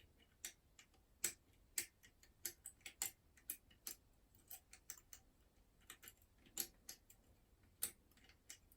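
Faint, irregular metallic clicks of a lever pick and tension wire working the levers inside a five-lever mortice lock, as the lock is being picked open.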